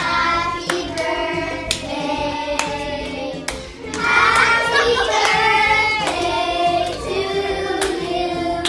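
A group of children singing together, with hand claps in time about once a second; the singing grows louder about four seconds in.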